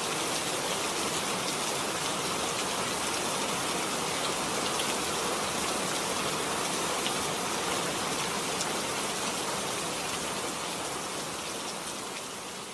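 Steady rain falling, an even hiss with scattered droplet ticks, beginning to fade out near the end.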